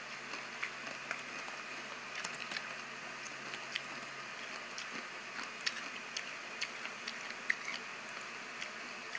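A person chewing candy with the mouth close to the microphone: soft, irregular wet clicks and smacks over a steady faint hiss.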